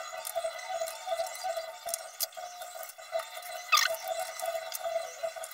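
Light clicks and taps of plastic and metal as a laptop battery pack is handled and set into the open chassis, with one louder scrape about four seconds in, over a steady background hum.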